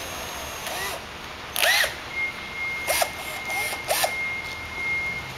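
Cordless drill's motor given about five short trigger blips, each a quick rise and fall in pitch, the loudest about one and a half seconds in. A faint steady high tone runs from about two seconds in.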